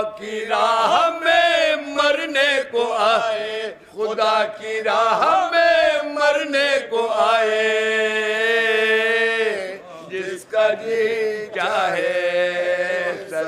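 Several men's voices singing a Shia mourning lament together without instruments, in a chant-like melody. Near the middle they hold one long note before the line moves on.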